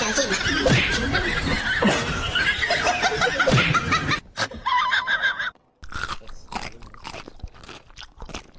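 A loud mix of voices for the first few seconds. After a brief silent cut, a cat chews and bites on a sneaker, making a run of small crunchy clicks.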